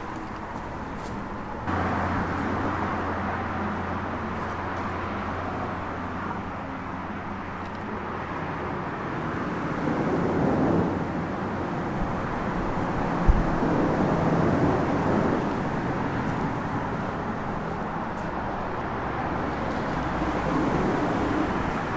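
Steady highway traffic noise, stepping up abruptly about two seconds in and swelling now and then as vehicles pass, with one short low thump about thirteen seconds in.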